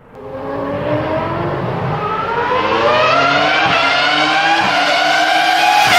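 A car engine accelerating, its pitch rising steadily as it revs up.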